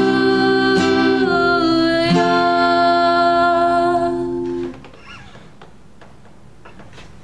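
Acoustic guitar strummed twice more and left ringing under a woman's held, gently sliding sung final note, the close of the song. The music stops about four and a half seconds in, leaving low room tone.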